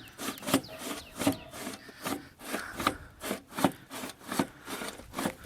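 A series of short, uneven scraping or rasping strokes, about two or three a second, like something rough being rubbed or scraped by hand.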